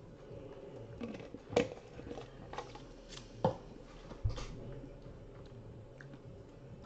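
A few scattered light clicks and knocks over low room noise, the three loudest about a second and a half, three and a half, and four and a quarter seconds in.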